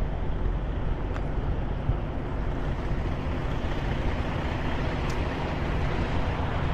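Steady low rumble of vehicle and traffic noise.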